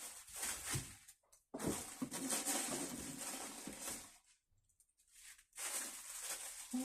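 Packaging rustling and crinkling as wine glasses are unwrapped and handled, stopping briefly twice.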